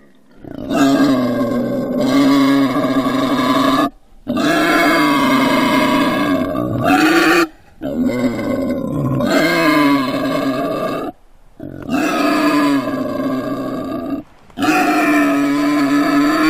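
Wild boar calling: a run of long, drawn-out grunting calls, each about three seconds, with short breaks between them.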